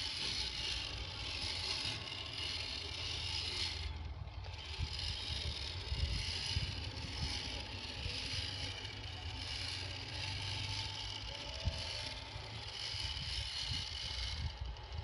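Homemade 4x4 RC crawler driving over rough off-road ground: its small electric drivetrain running steadily, with a few sharp knocks from the wheels and chassis on the terrain.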